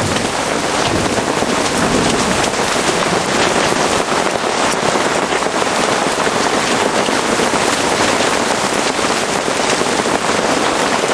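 Hail falling with heavy rain in a thunderstorm: a loud, steady, dense patter of many small impacts.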